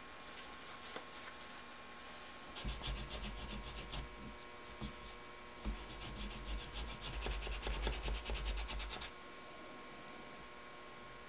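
Quick back-and-forth rubbing strokes of a small hand tool on a piece of leather, in two spells, the second longer, with low thumps as the work is pressed against the cutting board.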